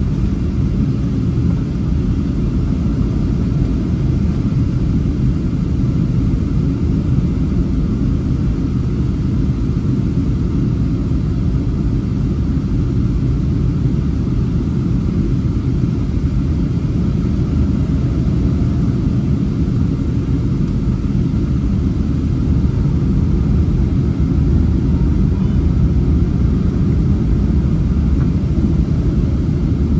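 Steady low rumble of cabin noise inside a Boeing 737-800 airliner on its approach to landing, from its CFM56-7B engines and the air rushing past the fuselage, heard from a window seat over the wing.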